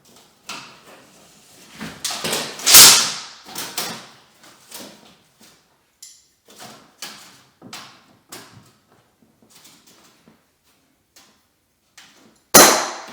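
Irregular knocks and clunks of hand tools and door hardware being handled against wood, with a louder bang about three seconds in and another near the end.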